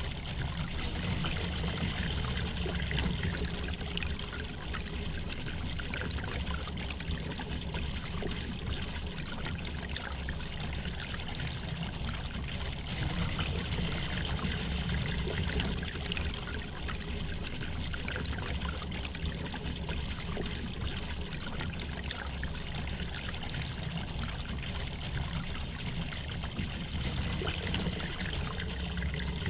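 A river flowing gently over stones, a steady rushing and trickling of water.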